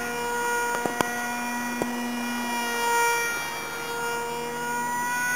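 Motor and propeller of a homemade foam delta-wing RC plane whining in flight overhead, its pitch stepping up and down. A few sharp clicks come about a second in.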